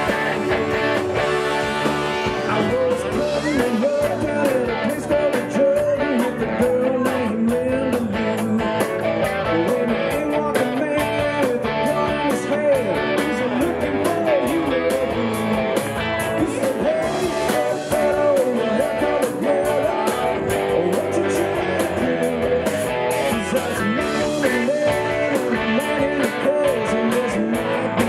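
Southern rock band playing live: electric guitars and drums, with a male lead vocal over them.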